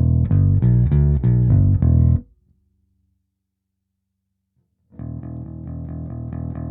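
Electric bass, a Squier Precision Bass with a DiMarzio Model P pickup, played through a Hiwatt Bulldog 440 bass amplifier. A loud phrase of notes stops about two seconds in, followed by a couple of seconds of silence, then a quieter, fast run of evenly repeated notes.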